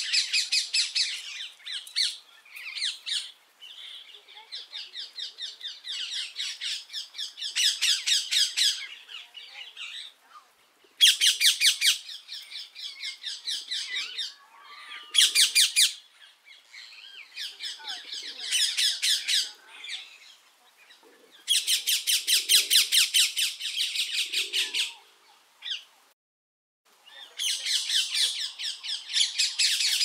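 Rose-ringed parakeet calling: loud shrieks, whistles and harsh notes given in rapid runs of many notes a second. The runs come in bouts a few seconds long, broken by short pauses.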